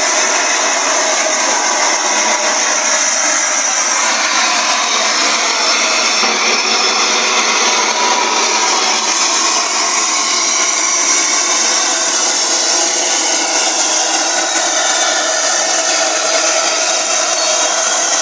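LNER A4 steam locomotive 60007 Sir Nigel Gresley blowing off steam: a loud, steady hiss that holds unbroken without chuffs or pauses.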